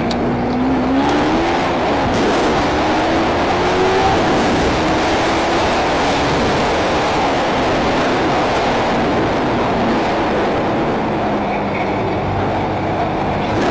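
Wind rushing over a helmet-mounted camera as a sport motorcycle rides along, its engine note rising over the first few seconds as it accelerates, then holding steadier.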